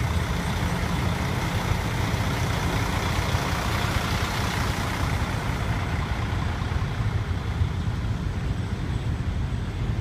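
Heavy diesel dump truck engine idling with a steady low rumble; the higher part of the noise fades after about six seconds.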